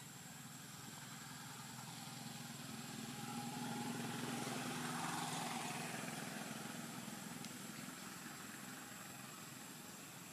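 A motor vehicle passes by unseen, its engine hum growing louder to a peak about halfway through and then fading away. A faint, steady high-pitched whine runs underneath.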